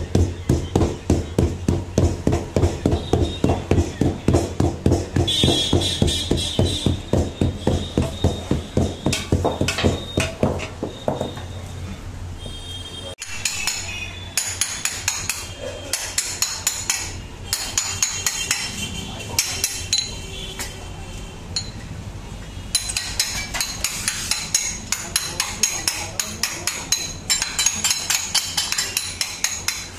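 Heavy mallet pounding a sheet of sesame gazak on a wooden board, about three blows a second, for the first twelve seconds or so: the roasted sesame being beaten into the sugar layer. After that come lighter, irregular knocks and scrapes of a long knife cutting the flattened sheet into squares on the board.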